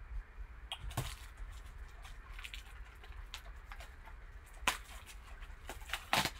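A small cardboard box handled and turned over by gloved hands: scattered light taps and rubbing, with sharper knocks about a second in, after about four and a half seconds, and near the end.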